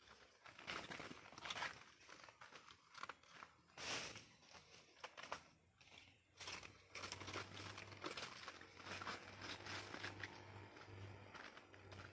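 Dry banana bracts and leaves rustling and crunching in irregular bursts as they are handled, pulled from a sack and stacked.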